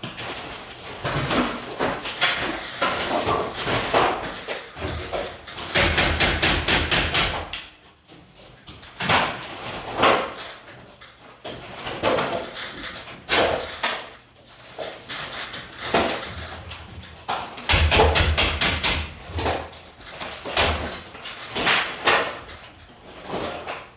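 Hammering and knocking on a wooden ceiling frame being stripped: irregular blows, with two runs of rapid knocking about six and eighteen seconds in, each lasting a second or two.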